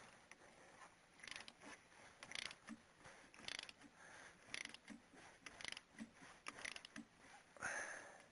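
Faint ratchet wrench clicking in short runs about once a second, as a long bolt is turned to draw the crankshaft pulley onto the crankshaft.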